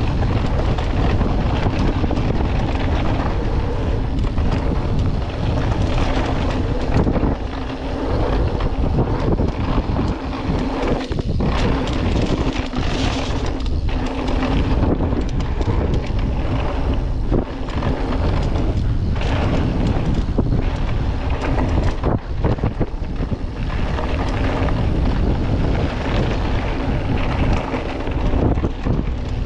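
Wind rushing over an action camera's microphone during a fast mountain-bike descent, with the bike rattling and clattering over rough trail throughout.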